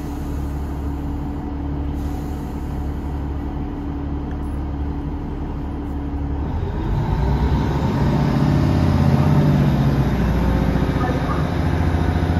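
Underfloor Cummins diesel engines of a Class 150 Sprinter diesel multiple unit, heard from inside the passenger saloon: a steady idle, then about six seconds in the engines are opened up and the note rises and grows louder as the train begins to depart.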